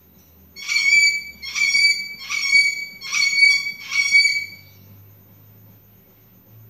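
Sulphur-crested cockatoo screaming: five loud screams in a row, about one a second, each held on a steady pitch, starting about half a second in.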